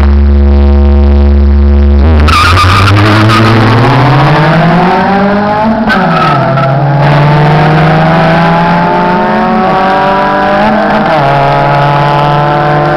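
Two Honda four-cylinder cars, a Civic and a Prelude, held at steady revs on the line, then launching about two seconds in with a brief squeal of tyres. The engines climb in pitch as they accelerate, dropping at gear changes about six and eleven seconds in, then climbing again.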